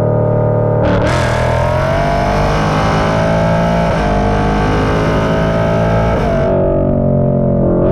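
Ford Mustang Dark Horse's 5.0 V8 running through Kooks long-tube headers and an AWE SwitchPath exhaust while driving. About a second in, the exhaust note opens up into a harsher, louder-edged sound, which falls away after about six seconds. Rock music with distorted guitar plays underneath.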